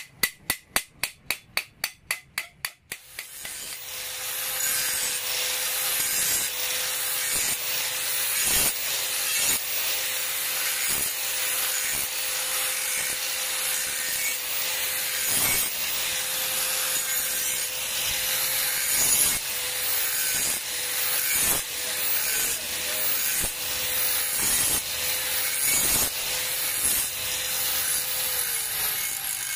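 A hammer rapidly striking a steel hoe blade on an anvil, about five blows a second, for the first three seconds. Then an electric angle grinder with a flap disc grinds the hoe's steel edge: a steady motor whine under a loud grating hiss, the whine dipping in pitch near the end.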